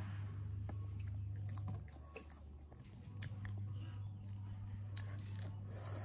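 A person chewing food close to the microphone, with short wet clicks and crunches. Under it runs a steady low hum, the loudest thing, which drops out for about a second and a half around two seconds in.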